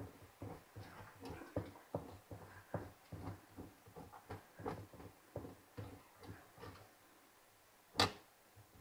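A block of cheese being grated by hand: short repeated grating strokes, about three a second, which stop about seven seconds in. A single sharp knock follows near the end.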